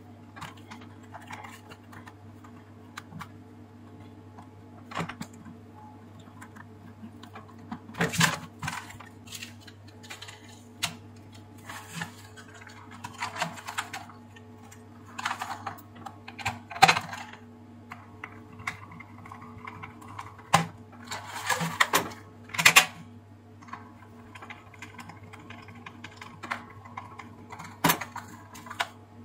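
Plastic housing parts of a steam iron being handled and fitted together, giving irregular clicks, knocks and rustles, the loudest about halfway through and again about three quarters in. A steady low hum runs underneath.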